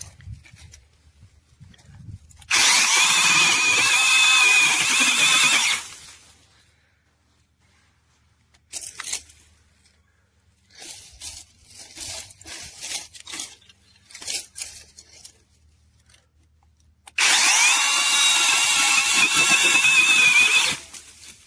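Cordless brushless mini chainsaw running in two bursts of about three seconds, its motor whining as it cuts through shrub branches; the second burst comes near the end. Between the bursts are scattered short cracks and rustles of branches.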